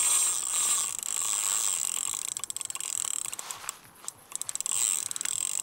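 Fishing reel clicking in quick runs as a hooked fish is played on a carp rod, over a steady high-pitched hiss.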